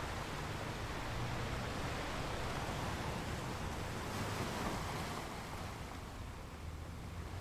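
Sea waves washing on a shore: a steady rushing noise that swells about four seconds in and then ebbs away.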